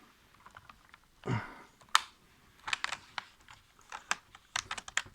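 Keys on a new ThinkPad T440p keyboard clicking as they are pressed down to seat the keyboard so the keys don't stick: irregular sharp clicks, some in quick runs, with a dull thump about a second in.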